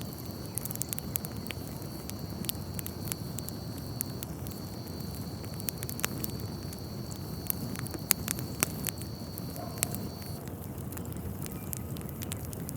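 Crackling fire: irregular sharp pops and snaps over a low, steady rush, with a steady high-pitched tone that stops about ten seconds in.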